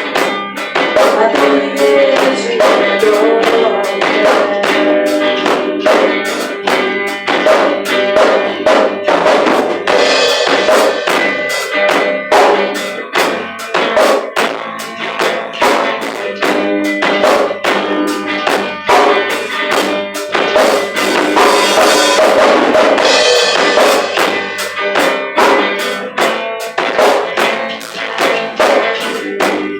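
Worship band playing the song with a steady beat.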